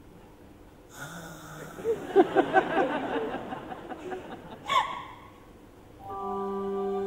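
Live stage-musical sound recorded from the audience: after a hushed second comes a flurry of short, quick notes and sounds, with a sharp falling swoop near the five-second mark. About six seconds in, the pit orchestra starts a sustained chord.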